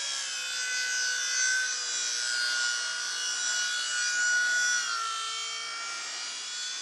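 RC model plane's motor and propeller whining steadily in flight, the pitch dropping slightly about five seconds in.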